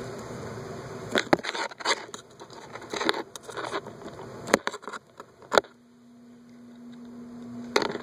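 Handling noise of plastic and small parts: a run of sharp clicks, crackles and scrapes starting about a second in, then a steady low hum for about two seconds near the end.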